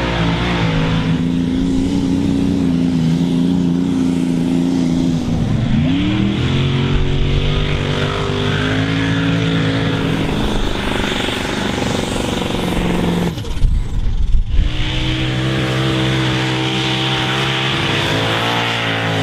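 Supercharged V8 engines of mini modified pulling tractors running hard under load. The pitch dips and climbs once about six seconds in. Near the three-quarter mark the steady note breaks off briefly with a few loud bangs, then resumes.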